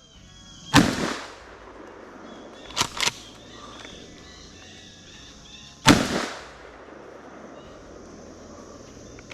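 Two 20-gauge shotgun shots about five seconds apart, each a sharp blast with a short echoing tail. Between them come two quick, quieter clacks.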